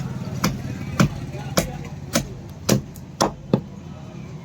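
Hand hammer striking steel, about seven blows at roughly two a second, over a steady low hum: a blacksmith hammering a spear forged from truck leaf-spring steel.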